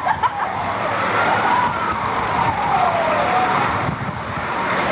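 Ambulance siren in a slow wail, its pitch rising and falling over a few seconds, with a couple of brief clicks at the start.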